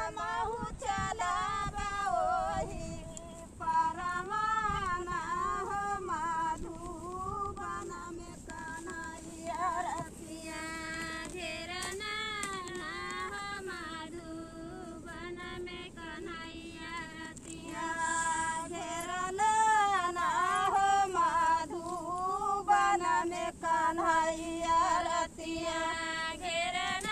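A high-pitched singing voice carrying a song melody, with quick wavering ornaments on the notes.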